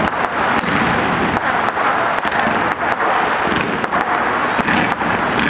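A dense fireworks barrage: rapid, irregular pops and bangs from rising shells and comets over a steady wash of noise.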